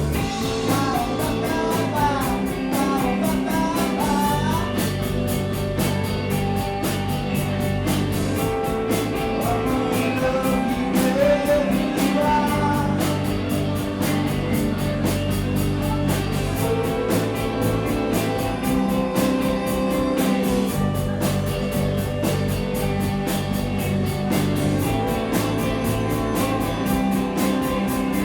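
Rock band playing live: guitars, bass and drums, with a melodic lead line that bends up and down in pitch over the steady beat.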